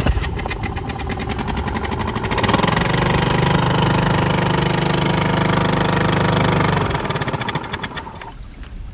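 Small Honda four-stroke outboard motor running at low revs, then opened up about two and a half seconds in to a steady, louder run at higher revs, and throttled back near the end.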